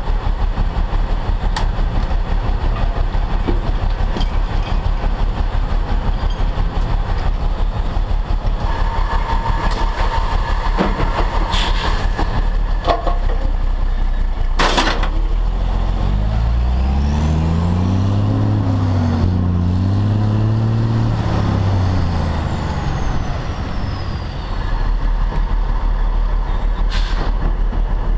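Heavy wrecker's diesel engine running with a steady low knock. About halfway through there is a short hiss of air, and then the engine revs up and down as the truck pulls away, with a faint high whine rising and falling with it.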